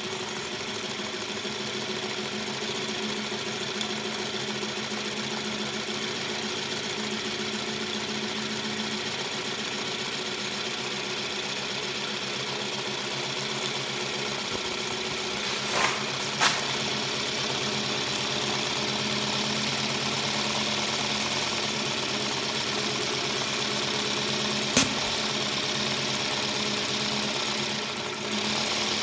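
Aster Lion live-steam model locomotive running on a roller test stand, a fast, steady, even beat of its cylinders and running gear. Three sharp clicks cut through it, two close together about halfway and one more later on.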